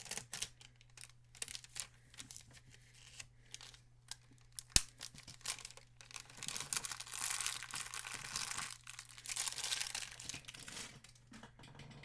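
Plastic shrink-wrap being torn and crinkled off a new CD case: scattered rustles and clicks, one sharp click about five seconds in, then several seconds of steady crinkling as the wrapping is pulled away.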